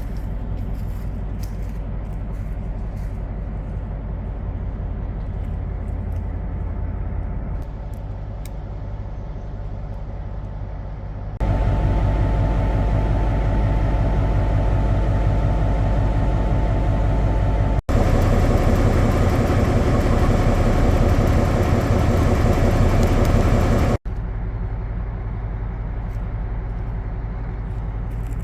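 Steady low engine rumble. It grows louder and rougher in the middle stretch, breaks off abruptly twice, then settles back to its earlier level.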